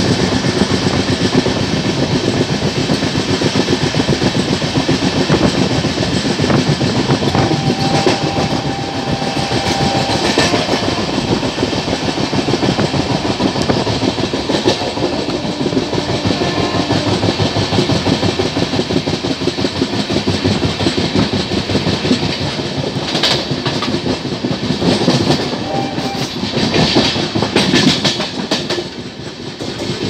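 Wheels of a moving LHB passenger coach rolling over the track, heard from aboard the train: a steady, fast clickety-clack, with a few sharper clanks across rail joints and points, several of them near the end.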